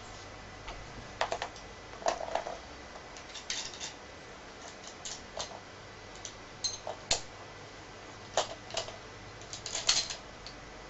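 Irregular clicks and knocks of a WE G39 gas blowback airsoft rifle and its parts being handled, as its sniper scope is taken off the rail and an ACOG-style scope is fitted. The loudest knocks come about two seconds in and near the end.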